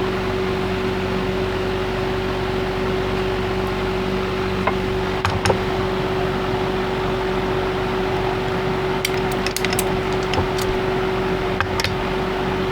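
Steady mechanical hum with a constant tone, with a few light clicks and taps of the plastic injector and molds being handled while heated liquid plastic is injected into bait molds.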